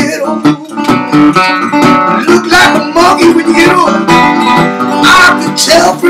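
National tri-cone resonator guitar played bottleneck slide style: a steady picked bass line under gliding slide notes on the upper strings.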